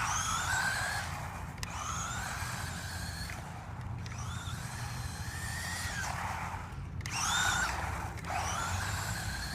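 Electric motor of a remote control car whining up in pitch in repeated short bursts as it is throttled on and off.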